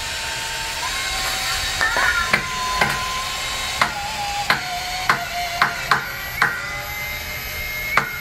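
Cordless drill running as it drives screws into soft wood: a steady motor whine that shifts and drops in pitch as it loads, with a series of sharp knocks about every half second through the middle and another near the end.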